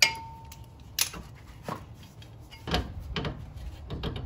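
Metal clicks and knocks as a rusty rear sway bar link and its nut are worked loose by hand, about half a dozen in all. The first and loudest is a sharp metallic click that rings briefly.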